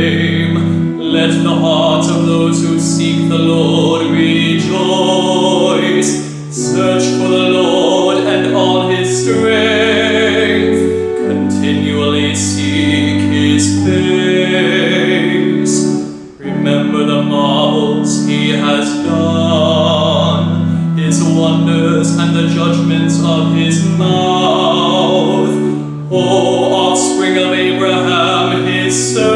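Solo male voice singing the psalm from the liturgy in long phrases with vibrato, over sustained accompanying chords that change every few seconds. There are short breaths between phrases.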